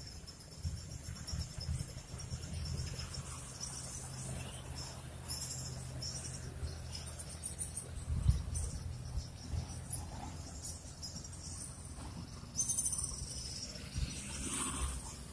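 Insects chirping and trilling in a steady high-pitched chorus over a low steady rumble, with a sharp thump about eight seconds in and a louder clatter a little before the end.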